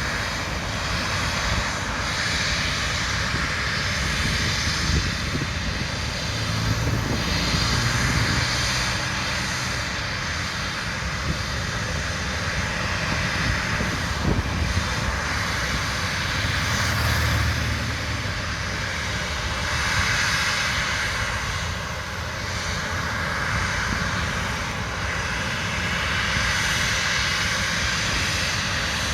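Twin-engine jet airliner's engines running, a continuous loud rush with a low rumble that swells and eases every few seconds.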